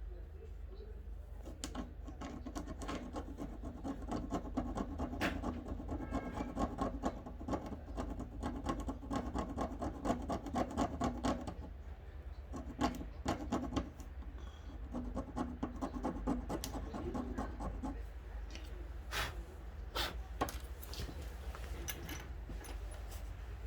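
Scraping and rubbing on a worn, corroded fishing-rod reel seat part being worked on by hand. The work goes in long stretches with short pauses, and there are a few sharp clicks near the end.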